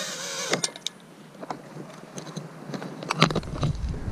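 FPV racing quadcopter's motors and propellers whining steadily, then cutting off about half a second in as the drone lands and is disarmed. A couple of sharp knocks follow, then scattered light clicks and a low rumble of handling noise.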